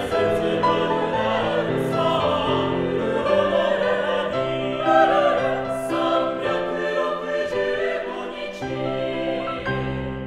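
Mixed-voice four-part choir singing a phrase in full harmony, with long held chords.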